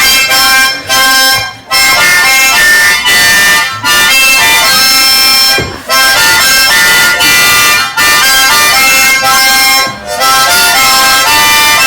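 Background music: a melody of held notes stepping up and down in pitch, with brief breaks between phrases.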